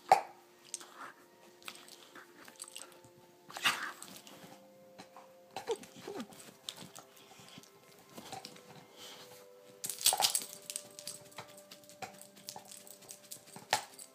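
A dog playing on a bed: a few short, sudden dog sounds among rustling of the bedding, the loudest about ten seconds in. Faint music plays in the background.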